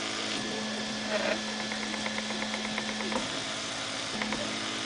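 Home-built 3D printer's stepper motors humming as the print head moves, the tone stepping to a new pitch with each change of move. A run of quick, faint ticks comes partway through.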